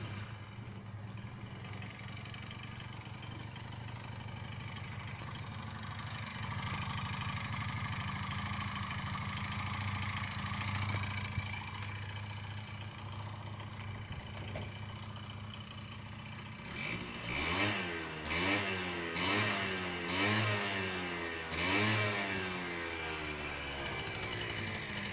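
Honda Dio AF27 scooter's 50cc two-stroke single-cylinder engine idling steadily, then revved in about five quick throttle blips in the last third, dropping back to idle after each. The engine has a freshly fitted cylinder, piston and rings.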